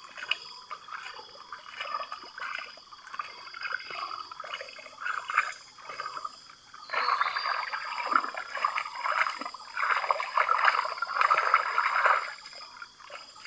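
Water swishing and trickling in a gold pan as sediment is washed, in irregular surges that grow louder about halfway through.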